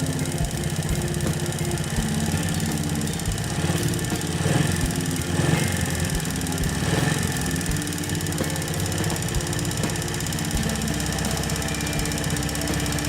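Honda Benly CD50S's small single-cylinder four-stroke engine running at idle, revved briefly a few times around the middle. It carries a clicking noise (カチカチ音) whose cause the owner doesn't know.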